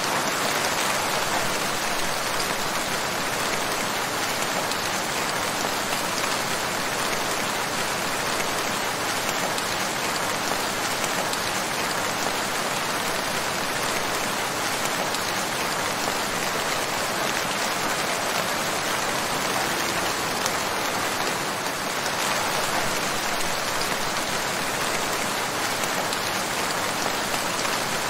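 Rain falling steadily, a dense, even hiss of raindrops on surfaces that holds the same level throughout.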